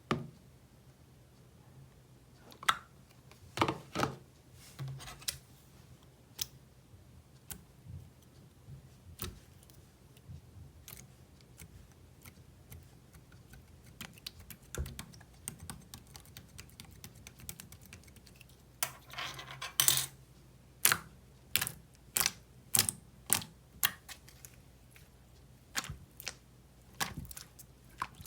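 Irregular sharp clicks and taps, in quick runs about two-thirds of the way through, over a faint low steady hum.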